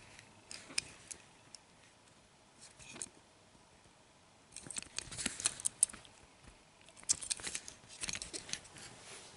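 Fingers handling and turning a small 1:64 diecast toy truck, making faint scattered clicks and rubbing, with two busier stretches about halfway through and near the end.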